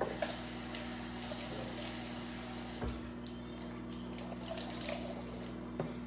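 Water running from a tap into a sink, with a couple of light knocks.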